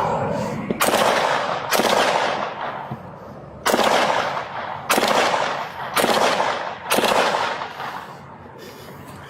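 Six gunshots, roughly a second apart with a longer pause after the second, each trailing off in a long echo.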